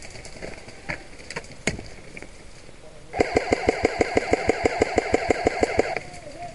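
Airsoft electric gun firing a full-auto burst of about three seconds, starting about three seconds in: evenly spaced shots, around seven a second, over the steady whine of its motor and gearbox. A few single clicks and knocks come before it.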